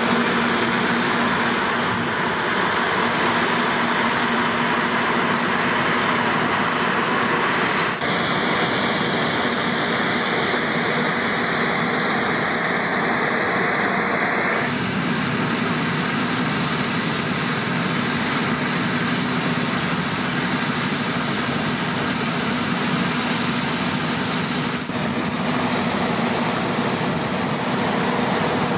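Claas Tucano 440 combine harvester running under load while harvesting rapeseed: a steady engine drone with threshing and header noise. The sound changes abruptly three times, at about 8, 15 and 25 seconds in.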